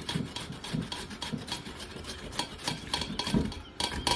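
Peeled white radish (mooli) rubbed by hand down a flat stainless-steel grater, a rhythmic rasping at about three strokes a second.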